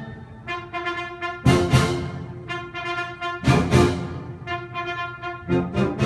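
Live orchestra with a brass section playing: held chords broken by three loud full-ensemble accents about two seconds apart.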